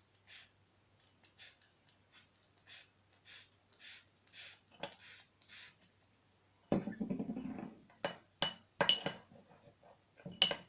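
A spoon stirring slime in a bowl as borax is mixed in. It starts with soft, regular strokes about every half second, and about two-thirds of the way through it turns into louder stirring with sharp clinks of the spoon against the bowl.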